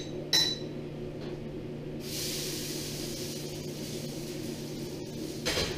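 Last slice of French toast sizzling in a hot frying pan: a steady high hiss that starts suddenly about two seconds in, after a light metal clink at the start, with another clink near the end.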